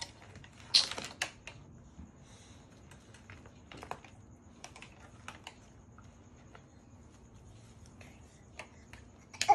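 Scattered light clicks, taps and rustles of hard plastic and cloth as a toddler rummages through clothes in a plastic laundry basket from her plastic baby walker, loudest about a second in and again around four seconds in.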